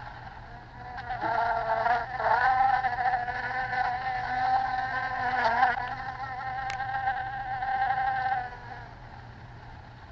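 Flies buzzing around the listener's head in a binaural 3D-audio recording. The buzz wavers in pitch as they move, starts about a second in after a short pause, and stops near the end.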